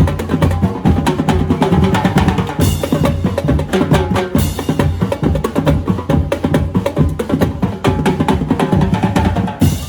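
Street-dance drum corps playing a fast, dense rhythm on drums, with heavy low drum beats under sharp stick hits, and a few brief bright crashes.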